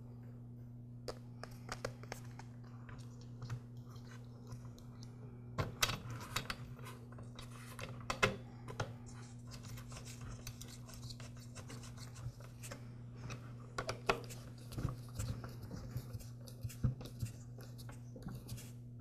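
Irregular small clicks, taps and scrapes of plastic and metal parts being handled as a carburetor is fitted back onto a string trimmer's engine, with a few louder knocks around six and eight seconds in. A steady low hum runs underneath.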